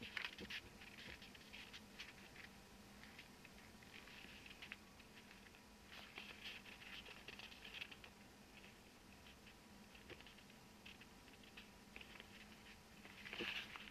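Faint, intermittent rustling and scratching of a thin translucent paper sheet sliding over another printed sheet, moved by hand.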